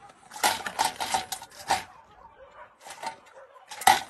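Wire cage trap rattling and clanking as a panicking trapped cat scrambles against its mesh walls, in quick runs of clatter with the loudest knock near the end.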